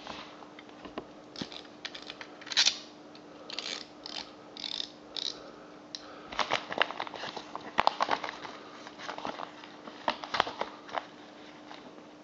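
Crinkling and rustling of a padded paper mailing envelope being handled, then a run of sharp irregular clicks from a snap-off utility knife as its blade is slid out.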